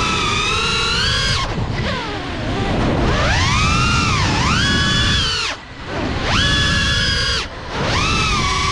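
FPV racing quadcopter's brushless motors whining, the pitch climbing and falling with the throttle, with the whine dropping out briefly three times as the throttle is cut, over rough wind rumble on the onboard microphone.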